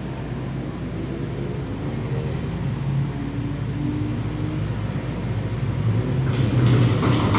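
Engines of cars lapping a race circuit, heard from the trackside: a steady low rumble with faint rising and falling engine notes, growing louder toward the end.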